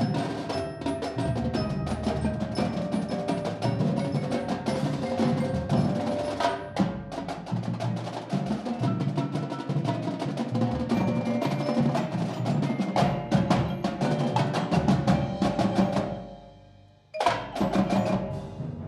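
A high school band playing, with busy percussion: rapid drum and wood-block strikes and bell-like mallet notes over sustained lower parts. Near the end the music fades away, then music starts again abruptly about a second later.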